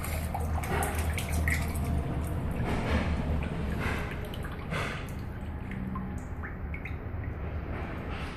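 Water splashing and dripping as a hydro-dipped object is lifted out of the dip tank, with many drips falling back into the water through the first few seconds and thinning out after. A steady low hum sits underneath.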